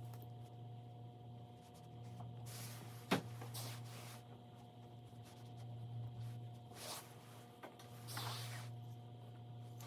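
Faint woodworking handling sounds: soft scrapes and rubs, with one sharp knock about three seconds in, over a steady low hum.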